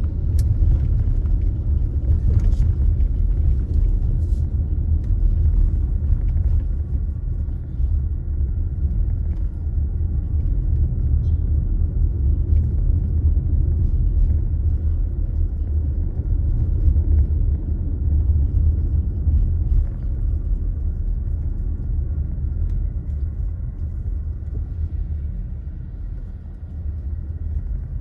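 Car driving along: a steady low rumble of engine and road noise, easing slightly near the end.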